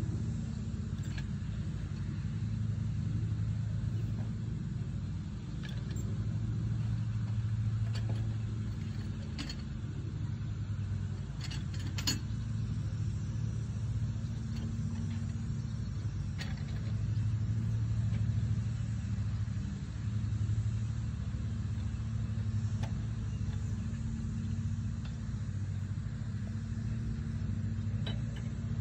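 A steady low engine hum, like a vehicle idling, with a few scattered light clicks and taps over it.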